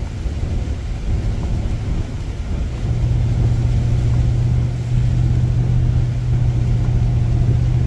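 Car driving along a highway: a steady low drone of engine and road noise heard from inside the cabin, growing a little louder about three seconds in.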